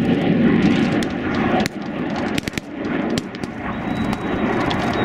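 Scattered sharp cracks of gunfire over a steady low engine rumble. A thin high whine comes in about four seconds in.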